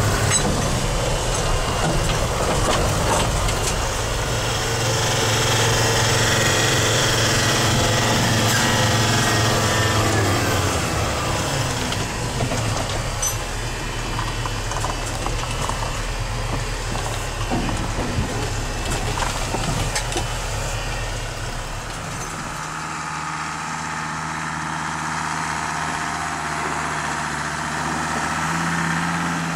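Mercedes-Benz T1 4x4 van's engine running while driving, heard from inside the cab, with its pitch falling about ten seconds in. About 22 seconds in, the sound changes to the van's engine heard from outside, a steadier, quieter note with less low rumble.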